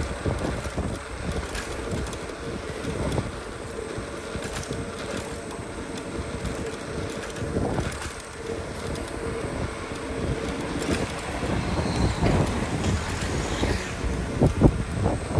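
A scooter rolling over pavement: a continuous rumble of the wheels with rattling and knocking from the deck and frame, a few sharper knocks near the end.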